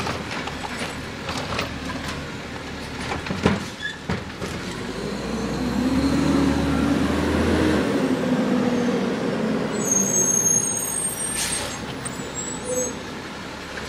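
Diesel engine of an automated side-loader garbage truck, with a few sharp knocks in the first seconds as the arm handles the yard-waste cart. The engine then revs up and back down about halfway through, and a high brake squeal and a burst of air hiss come near the end.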